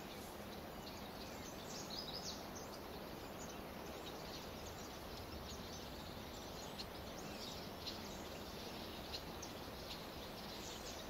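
Outdoor ambience: a faint, steady background hum with small bird chirps scattered throughout.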